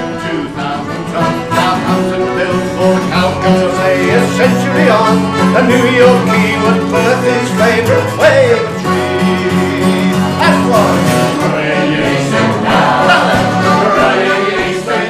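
A man singing a traditional sailors' song with acoustic guitar and button accordion accompaniment.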